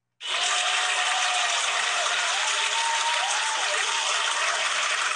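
Recorded crowd applause and cheering, starting abruptly just after the start, with a few voices whooping up and down in pitch.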